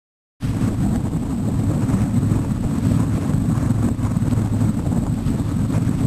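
A boat's engine running with a steady low drone, mixed with wind rumbling on the microphone; it starts abruptly about half a second in.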